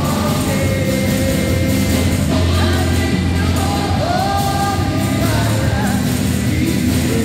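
Church choir singing with held, gliding notes over a steady low instrumental accompaniment.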